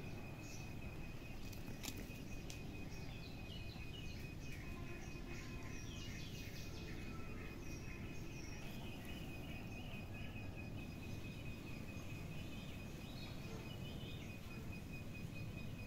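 Outdoor ambience: birds chirping here and there over a steady high-pitched drone and a low background rumble, with a couple of faint clicks about two seconds in.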